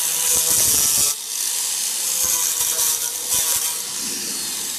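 Electric angle grinder sanding rough, hardened building filler on a wooden painting panel: a steady motor whine under a harsh rasping hiss from the disc on the coating. The hiss is loudest in the first second and rises and falls as the disc bites.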